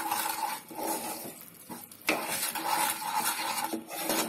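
A spatula scraping and stirring a thick onion-ginger-garlic spice paste around a hot kadai, the paste sizzling in the oil as the masala is fried down (kosha). The stirring eases off briefly about one and a half seconds in, then picks up again.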